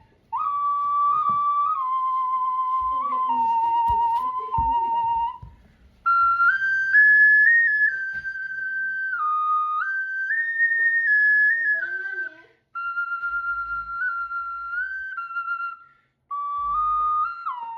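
A Pecorino ocarina in A-flat playing a slow melody of held, stepping notes with a pure, flute-like tone, in about four phrases broken by short pauses for breath.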